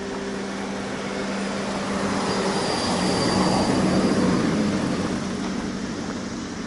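A minivan driving slowly past close by, its engine and tyre noise swelling to a peak about halfway through and then fading as it moves away down the street. A steady low hum runs underneath.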